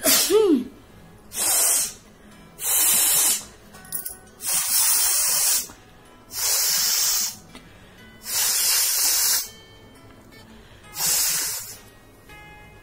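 A person forcefully blowing air out through the nose, clearing it in a series of hard, hissing blasts. There are seven blasts of about a second each, spaced roughly every one and a half seconds, and the first opens with a short vocal sound that falls in pitch.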